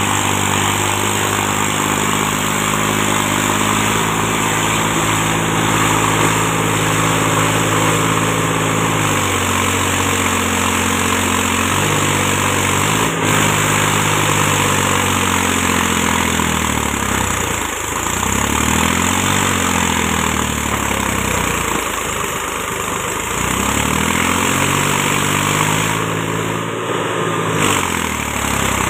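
Mahindra 275 DI tractor's three-cylinder diesel engine running as it pulls a loaded trolley through mud. The engine note is steady at first, then dips and rises again several times in the second half as the throttle is eased and opened.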